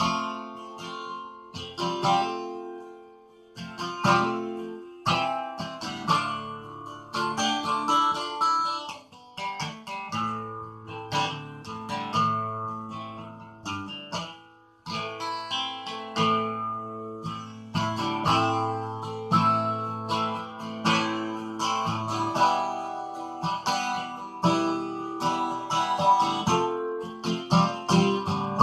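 Acoustic guitar being strummed, chords struck again and again in a steady rhythm.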